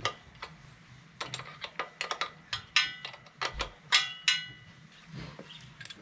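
Irregular metallic clicks and clinks of hand tools working on a motorcycle's rear chain adjusters, a few of them ringing briefly about halfway through.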